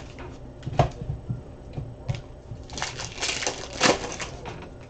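Foil trading-card pack wrappers being torn open and crumpled by hand. Sharp crackles come about a second in and again about two seconds in, then a longer run of crinkling between three and four seconds in.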